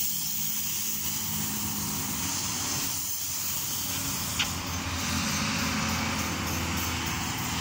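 Polyurethane foam spray rig running: a steady hiss of spray over the low drone of its pump machinery, with one sharp click about four and a half seconds in.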